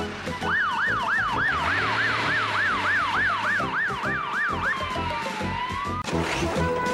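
Fire engine siren wailing fast up and down, about three sweeps a second, then sliding slowly down and back up before cutting off about six seconds in. A low steady hum runs beneath the wail.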